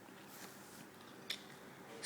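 Near silence: quiet room tone with a single faint click about a second and a quarter in.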